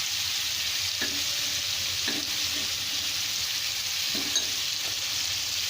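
Rohu fish and spice paste frying in olive oil in a kadai: a steady sizzle, with a few soft scrapes of the spoon as it is stirred.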